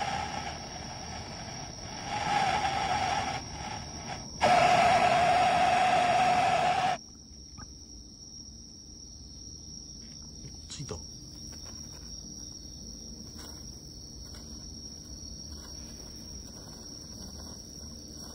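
A hand-held firework hissing loudly as it sprays sparks, surging about four seconds in and cutting off sharply a few seconds later. After that, crickets chirp steadily in the background, with a few faint clicks.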